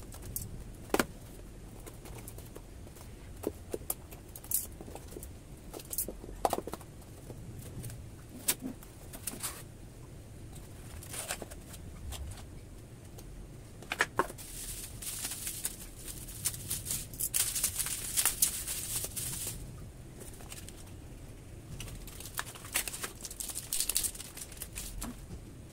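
Hands handling and opening a small cardboard box: scattered knocks, taps and scrapes of cardboard. Past the middle comes a longer stretch of crinkling as a plastic bubble-wrap bag is handled and opened, with a shorter bout of crinkling near the end.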